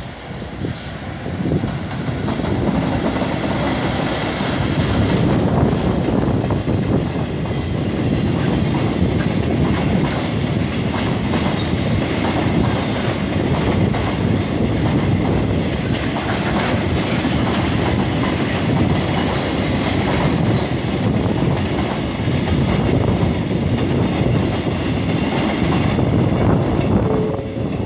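A train running on rails, a loud, steady rumble.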